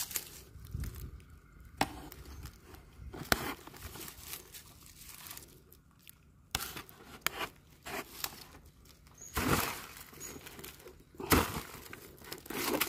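Irregular rustling and crinkling handling noise with scattered sharp knocks, growing louder in bursts in the later part; the sound cuts out completely for a moment about halfway through.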